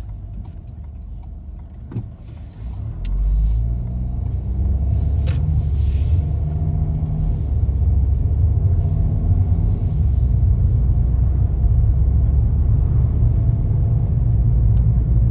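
Car driving, heard from inside the cabin: a steady low engine and road rumble that grows louder about three seconds in, with one brief click near two seconds.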